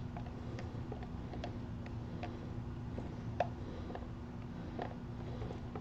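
Faint, irregular light clicks and taps from gloved hands handling resin cups at a silicone casting mold, about two a second, over a steady low hum.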